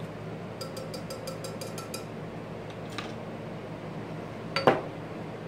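Wire whisk rapidly tapping the inside of a plastic measuring pitcher while stirring water, about seven quick clicks a second for a second and a half. Later come a single click and then a louder knock, a glass canning jar of corn being handled and set down on the counter.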